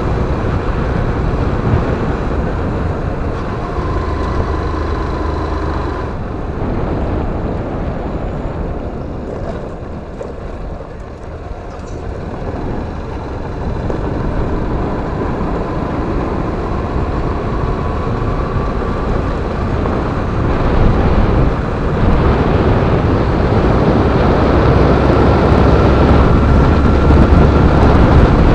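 Motorcycle engine running on the move, with heavy wind rumble on the microphone. The engine note drifts up and down with speed, eases off around ten seconds in, and builds louder after about twenty seconds.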